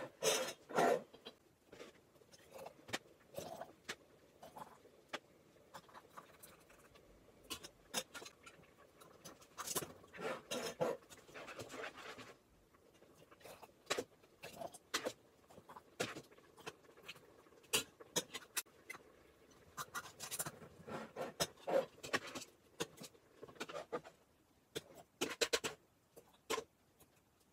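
A metal ladle and a wooden spoon scraping and knocking in a stainless steel pot and against a metal jam funnel as hot tomato puree is ladled into glass canning jars. Scattered short clicks and clinks come irregularly throughout.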